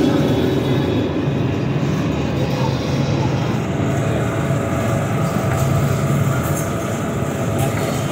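Steady, loud rumbling din of a busy, crowded shop, with no single event standing out.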